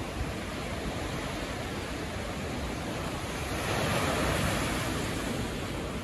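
Sea waves breaking and washing up a sandy beach: a steady rush of surf, with one wave building louder about three and a half seconds in and easing off again.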